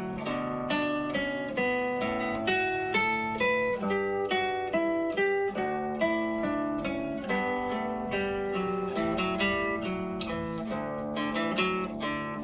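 Background music: a plucked string instrument, guitar-like, picking out a melody note by note, each note ringing and fading.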